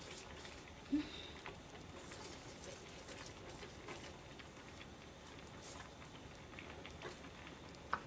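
Faint scattered pops and ticks of an orange chicken sauce simmering in the pan as it thickens with cornstarch slurry, with one short knock about a second in.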